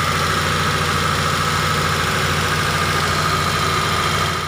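Suzuki Carry Futura T120SS injection engine running steadily with a high, steady flute-like whistle, heard from beneath at the dented oil pan. The mechanic traces the whistle to the pan being dented inward against the oil pump's pickup, so it sounds as the pump sucks up oil.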